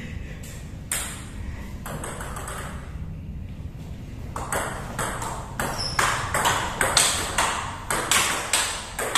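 Table tennis rally: the celluloid ball clicks off the rubber paddles and bounces on the table in quick alternation. After a lone click about a second in, the strokes come fast and even from about four seconds on, roughly three clicks a second.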